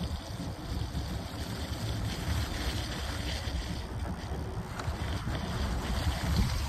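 Wind buffeting the microphone in a steady low rumble, with the hiss of a Riese & Müller Load 75 cargo bike's tyres rolling through wet slush.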